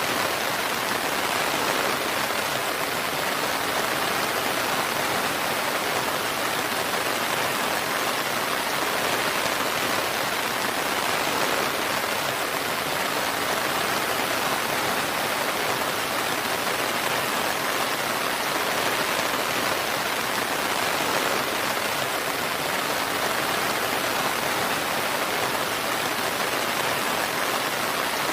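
Steady, even rain falling, a continuous dense patter with no thunder or breaks.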